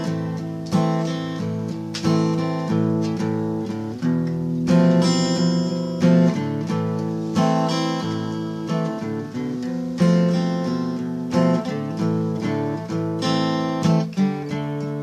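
Music: acoustic guitar strumming chords, with a fresh strum every half second to a second.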